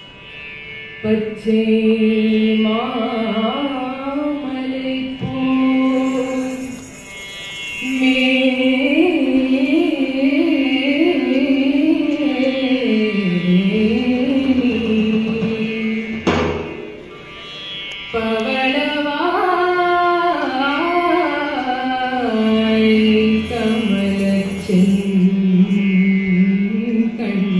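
A woman singing a slow, ornamented melody through a microphone and PA in three long phrases, her pitch sliding and turning within each phrase, with brief breaths between them.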